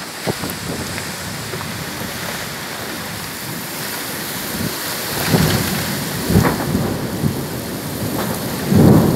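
Heavy rain pouring down steadily in a violent thunderstorm, with thunder rumbling in from about five seconds in and the loudest clap just before the end.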